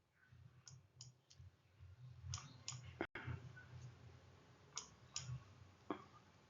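A few faint, sharp clicks at irregular intervals, about nine in all, the loudest about three seconds in, over near silence.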